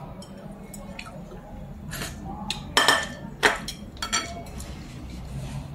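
A white ceramic bowl and chopsticks clinking: the bowl is set down on a glass tabletop and the chopsticks tap and scrape against it, a few sharp clinks about three seconds in.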